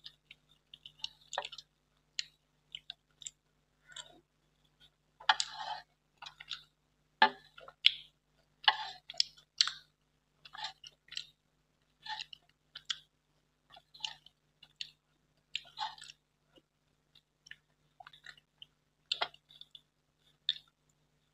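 Close-up eating sounds: wet smacking and chewing of a soft, syrupy sweet taken from a spoon, in irregular short bursts.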